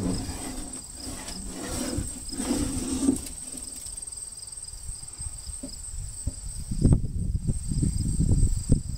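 Insects trilling steadily on a high pitch, with low rumbling and a few knocks getting louder near the end.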